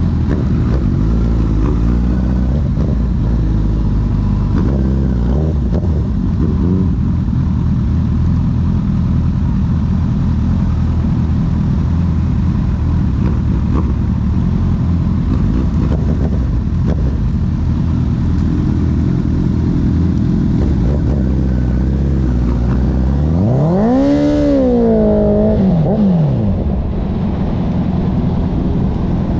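Honda CB1000R's inline-four engine running through a CS Racing full exhaust system while riding, with wind noise over a steady low drone. About three-quarters of the way through, the engine note climbs sharply and then falls back.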